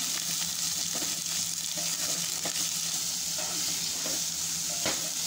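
Shredded vegetables sizzling in hot oil in a non-stick pan on a high flame, stirred and tossed with a spatula: a steady frying hiss with a couple of faint spatula scrapes on the pan.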